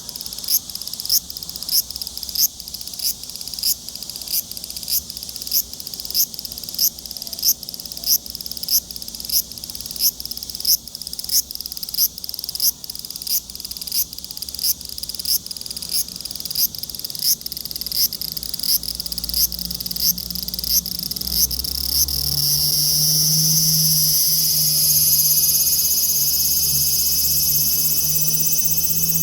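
Large brown cicada (Graptopsaltria nigrofuscata) singing: a slow run of high, buzzy pulses a little under two a second, which about two-thirds of the way through speed up and merge into one continuous sizzling drone.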